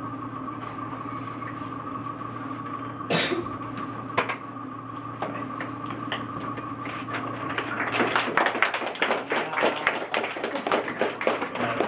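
A steady electrical hum throughout, with a sharp knock about three seconds in and a lighter one a second later, then a quick, dense run of clicks and taps over the last four seconds.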